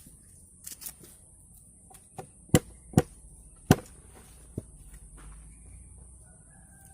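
A series of sharp chopping strikes from a blade: a quick pair, then a few irregular blows, the loudest three close together in the middle, and a lighter one near the end. A steady high insect drone runs underneath.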